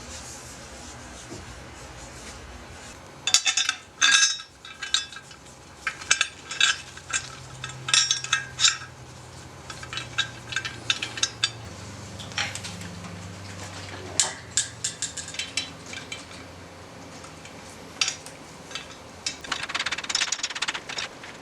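Small hard objects clinking and clattering in irregular clusters of sharp clicks, the busiest stretches a few seconds in and again near the end: hand tools and metal parts being handled at a workbench.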